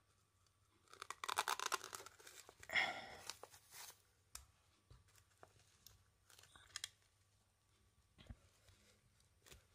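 Velcro hook-and-loop strips crackling and tearing in two short spells, about a second in and again near three seconds, followed by a few light taps.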